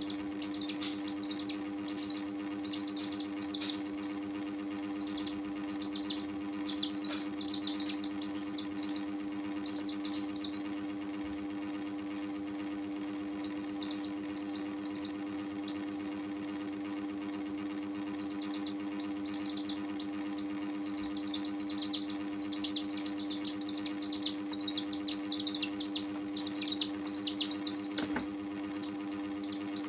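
Young chicks peeping, rapid high descending peeps in busy bouts with a lull of several seconds in the middle. A steady low hum runs underneath.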